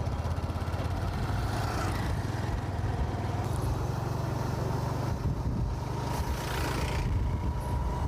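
Motorcycle engine running steadily while riding, with rushes of wind and road noise about five to seven seconds in.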